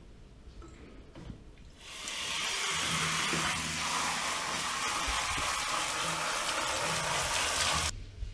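Tap water running hard into a sink, rinsing a film developing tank. It starts about two seconds in, runs evenly for about six seconds and stops abruptly near the end.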